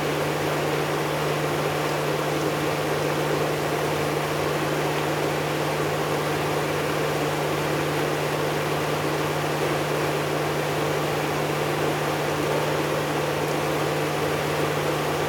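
Panasonic NA-W77FCW1 twin-tub washing machine running, a steady motor hum under a constant whooshing noise.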